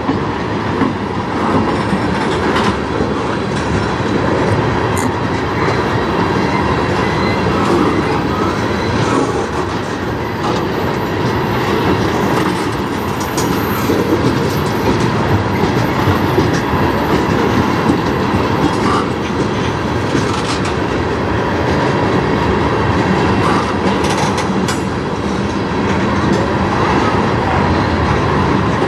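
Freight train tank cars rolling past close by: a steady rumble of steel wheels on rail, with clickety-clack as the trucks cross rail joints.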